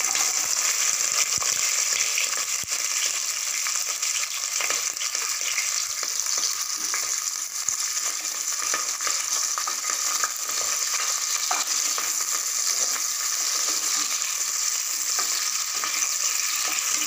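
Sliced shallots sizzling steadily in hot groundnut oil with whole spices and green chillies in an aluminium pressure cooker, being fried for the tempering. A wooden spatula stirs them, with a few light knocks against the pot.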